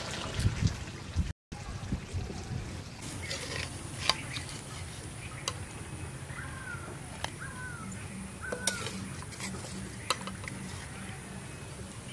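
Utensil stirring a pot of goat meat and elephant yam stem curry, with liquid sloshing and scattered sharp clicks of metal on the pot. Three short high chirps come in the middle.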